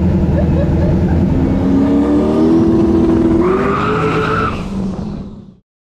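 Tuned Volvo 142 drag car of about 1300 hp accelerating hard, its engine note rising, with a high screech joining in for about a second past the middle. The sound then fades and stops shortly before the end.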